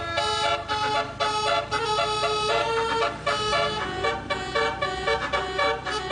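Bus 'telolet' musical horn playing a quick tune of chord-like notes that change several times a second, over the low running of the bus's engine.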